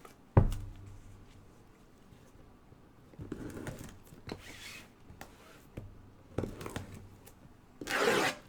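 Hands handling trading-card boxes and packaging: a sharp knock about half a second in, scattered light clicks and rustles, then a short burst of rustling near the end.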